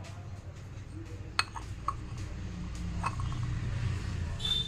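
A few light clinks and knocks of ceramic pickle jars and a spoon being handled: three short sharp ones about one and a half, two and three seconds in, over a low steady rumble.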